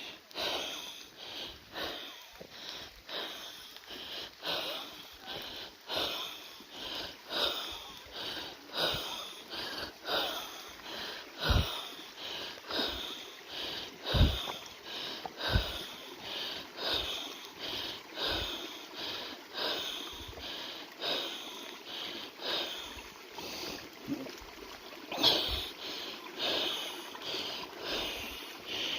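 A person's heavy, wheezy breathing while walking, in a steady rhythm of a little over one breath a second, with a few dull thumps of footfalls or mic handling.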